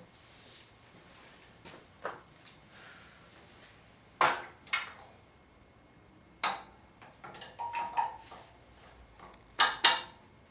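Scattered metallic clanks and knocks of tools or metal parts being handled and set down, with a handful of separate hits and a loud double clank near the end.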